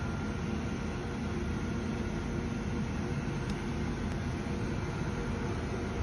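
Steady low machine hum with a constant hiss, unchanging throughout.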